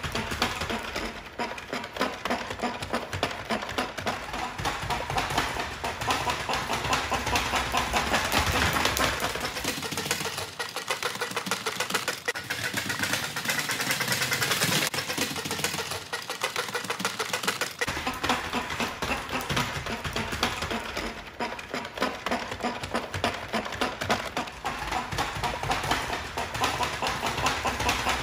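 Duck push-walker toy rolled across a hard floor, its flapping plastic feet slapping the floor in a rapid, continuous clatter.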